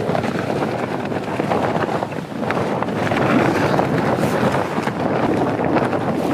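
Strong wind battering a tent, the fabric flapping and snapping rapidly, with heavy wind buffeting on the microphone.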